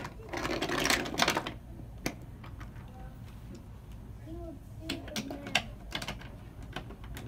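Wooden toy trains and track pieces clattering and clicking as they are handled. There is a burst of rattling in the first second and a half, then scattered single clicks and knocks.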